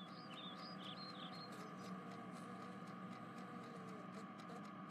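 Faint background ambience: a quick run of short high chirps in the first second and a half, over a low steady hum with a few faint ticks.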